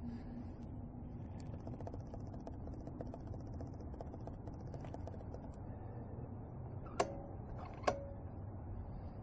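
Two sharp clicks with a brief metallic ring, a little under a second apart, as a gloved hand handles the controls of a Predator 79cc engine that is not running, over a low steady background rumble.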